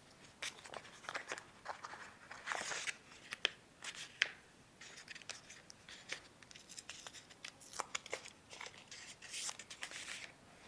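An adhesive decal skin and its backing paper being handled by hand: irregular faint crinkling, scratching and peeling sounds with small ticks as the piece is peeled off and laid onto the console's back.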